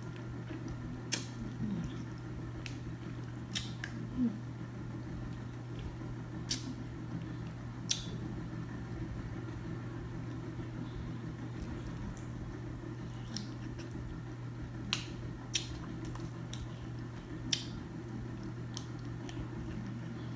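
Scattered sharp clicks and cracks of cooked seafood shells being picked apart by hand, with some eating sounds, over a steady low hum.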